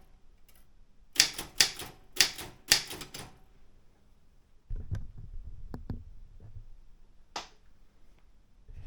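Daro Optima M16 manual typewriter: a short run of keystrokes, typebars snapping against the platen, about a second in. Then a lower rumble with a few light clicks and one sharp strike near the end.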